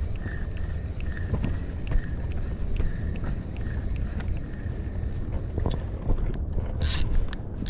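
Spinning reel being cranked to retrieve line: a faint whir that pulses about three times a second with each turn of the handle. It sits over a steady low rumble of wind on the microphone. Near the end comes one short, sharp hiss.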